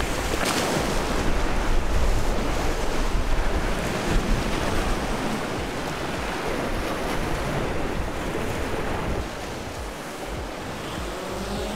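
Wind buffeting the microphone over the wash of surf, the low wind rumble easing after about nine seconds. Near the end a rising whine starts as the quadcopter drone's motors spin up.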